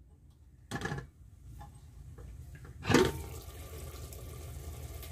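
An aluminium cooking-pot lid is lifted off with a clatter about three seconds in, after a shorter knock a second earlier. It is followed by a steady bubbling hiss of onion-and-spice masala simmering in a little water in the pot.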